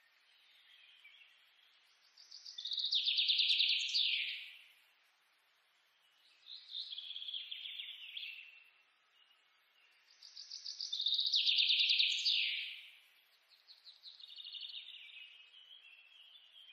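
Birdsong: four rapid trilled phrases, each about two seconds long, with short pauses between them and louder and softer phrases alternating.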